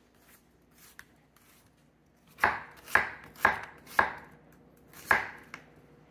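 Chef's knife chopping an onion on an end-grain wooden butcher-block board, each stroke ending in a sharp knock of the blade on the wood. After about two quiet seconds there are four knocks about half a second apart, then a fifth a second later.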